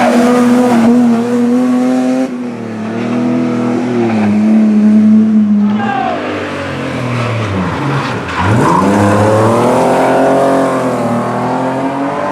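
Rally car engines at high revs, heard in several short segments that change abruptly. About two-thirds of the way through, one engine's revs fall right down and then climb steeply again as it accelerates hard.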